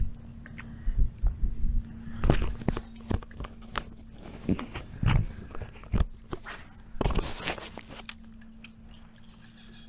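Irregular knocks and thumps on a fiberglass boat deck, from footsteps and fishing gear being handled, over a steady low hum.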